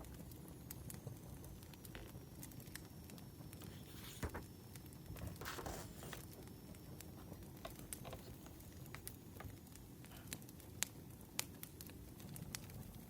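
Wood fire crackling, with scattered sharp pops and a short rustle about five and a half seconds in.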